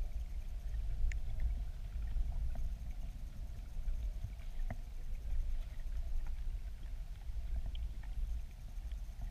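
Low, steady underwater rumble of river current flowing below a weir, heard through a submerged camera, with a few faint clicks and ticks.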